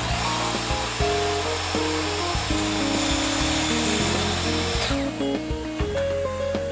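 Hand-held electric circular saw running and cutting across plywood: cutting noise with a steady high motor whine that cuts off about five seconds in. Background music plays underneath.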